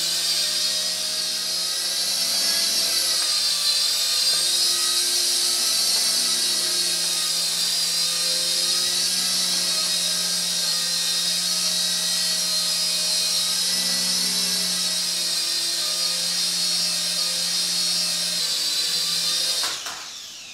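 KY202 toy coaxial helicopter in flight: the steady high-pitched whine of its small electric motors and twin rotors. Near the end the whine falls in pitch and dies away as it lands and the motors stop.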